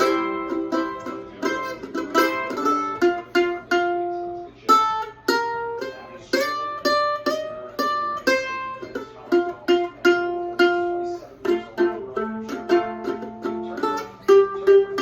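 Mandolin playing a blues melody in C, picked as a quick run of single notes that each ring briefly and die away.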